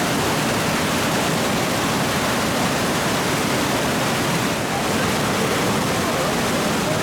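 Whitewater rushing steadily around an inflatable raft running river rapids.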